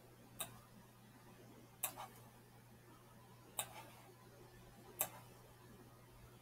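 Computer mouse button clicking four times, a couple of the clicks followed by a softer click about a fifth of a second later as the button is pressed and released while dragging, over a faint steady low hum.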